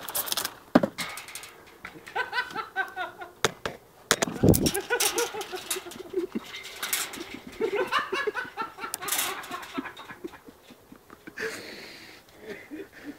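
Chickens clucking and cackling in three bursts of quick repeated calls, with sharp knocks and rustling between them and a loud knock about four seconds in.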